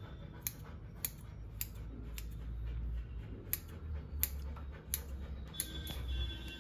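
Steel grooming scissors snipping through a golden retriever's long coat, trimming the feathering: a series of short, sharp snips, about one every half second to second.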